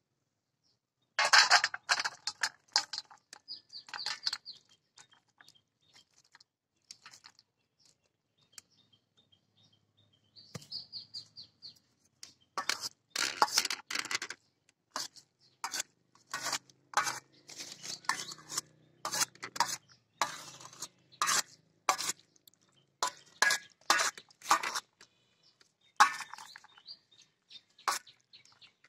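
Metal serving spoon clinking and scraping against a stainless steel plate, over and over, as syrupy boondi is spooned onto it and spread. It starts about a second in.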